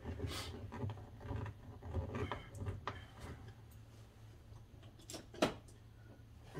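Scattered light clicks and knocks of car door parts and tools being handled, with one sharper click about five seconds in, over a steady low hum.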